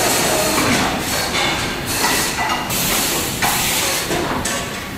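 Motor assembly line noise: a loud hiss of compressed air that starts and cuts off sharply every second or so, over a steady machine din.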